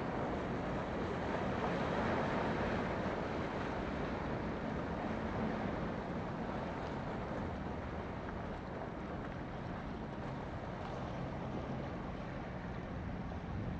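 Steady rush of sea surf breaking on the shore, with wind on the microphone.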